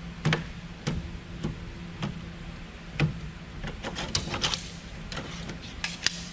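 Sharp clicks and light plastic-and-metal clatter as RAM sticks are unlatched and pulled from a server board's memory slots, about a dozen clicks spread over the few seconds, more of them in the second half. A faint steady low hum runs underneath.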